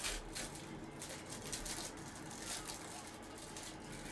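Trading card pack's foil wrapper crinkling and rustling in gloved hands as it is opened: a run of quick, irregular crackles.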